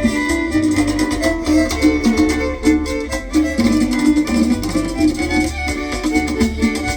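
Salvadoran chanchona band playing an instrumental passage, with violins carrying the melody over strummed guitar and a steady bass pulse.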